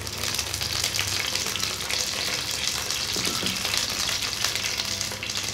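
Curry leaves frying in hot cooking oil: a steady sizzle full of fine crackles as the leaves spit in the freshly heated oil.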